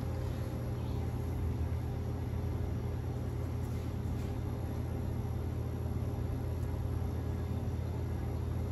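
Steady low hum of commercial kitchen equipment.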